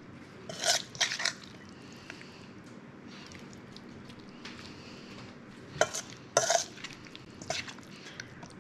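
Serving utensils scraping and clinking against dishes as dressed salad is lifted and plated, in a few short bursts about a second in and again around six seconds in.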